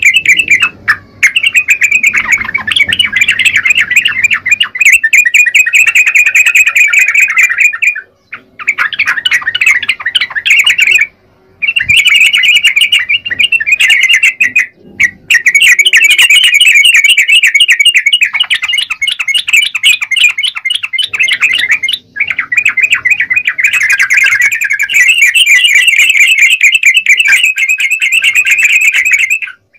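Yellow-vented bulbul (trucukan) singing vigorously: long runs of rapid, chattering notes broken by a few brief pauses.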